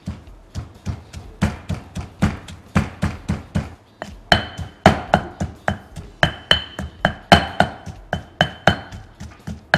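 Granite pestle pounding Thai curry paste in a granite mortar, a steady rhythm of about four strokes a second. From about four seconds in the strokes get louder and each carries a high ringing note.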